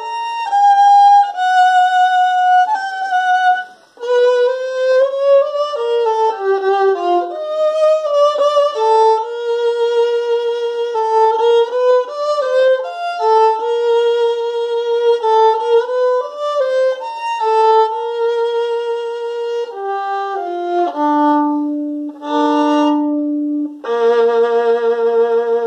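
Solo violin, bowed, playing a melodic technique exercise of held and stepping notes with vibrato. There is a brief break about four seconds in, and a low held note near the end.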